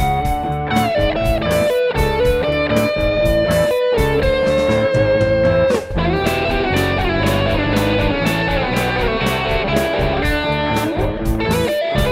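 Instrumental break of a rock song: an electric guitar holds and bends lead notes over bass and a steady drum beat.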